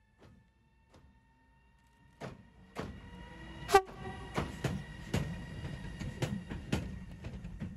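Siemens Smartron electric locomotive passing slowly at close range. Its wheels knock over the track joints and points, one every half second or so, under a low rumble. The loudest hit is a ringing metallic clang about four seconds in, and a faint steady high whine runs underneath.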